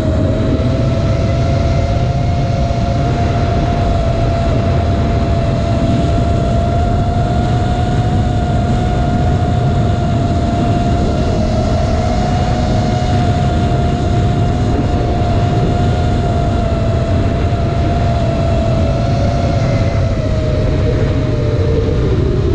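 Electric motors of a 5-inch 6S FPV racing quadcopter whining at a steady high pitch, held near full throttle against a strong wind, with heavy wind rumble on the onboard camera's microphone.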